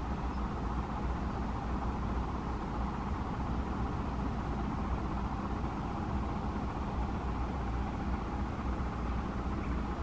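Steady outdoor background noise: a low rumble with a hiss over it, even throughout, with no distinct events.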